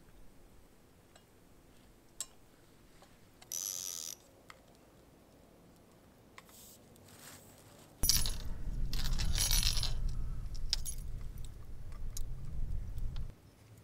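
Small metallic clicks and a short rasping burst from fishing tackle being handled. About eight seconds in comes a few seconds of louder water washing against shore rocks, with a low rumble of wind on the microphone, which stops abruptly.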